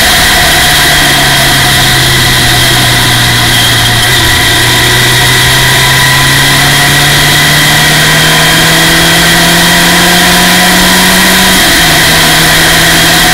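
Formula Ford race car's four-cylinder engine, loud from the cockpit, under way. Revs drop near the start, climb slowly and steadily for about ten seconds, then drop again with a gear change near the end.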